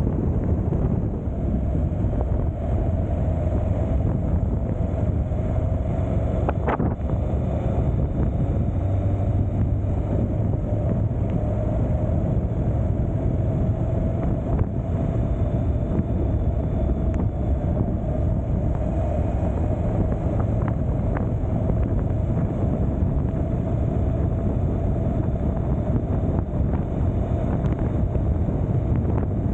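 Wind rushing steadily over the camera's microphone during the ride, over a steady low drone of the vehicle and road. There is a single sharp click about seven seconds in.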